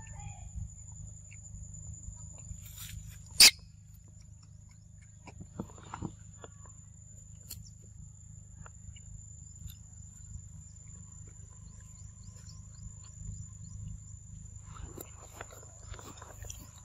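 Pig-tailed macaques handling and eating papaya: scattered small clicks and rustles, one sharp crack about three and a half seconds in, and rustling near the end, over a steady high whine and a low rumble.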